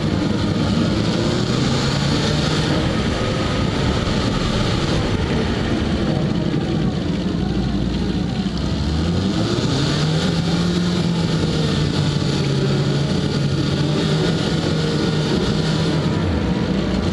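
Peugeot 206 engine and road noise picked up by a camera taped to the car's bumper: the engine note drops as the car slows around the middle, then rises again as it pulls away from about ten seconds in, over a steady rush of road noise.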